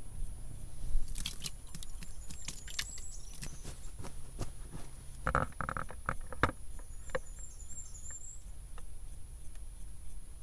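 Small wood fire crackling in a Dakota fire hole: scattered sharp pops and clicks, then a louder rustle and shuffle over dry ground litter about five seconds in. Two faint high chirps come in the background.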